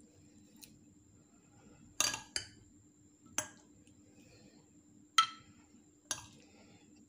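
Metal spoon clinking against a ceramic bowl and a glass dish while spooning out mango chunks: five sharp clinks at uneven intervals, the loudest about five seconds in.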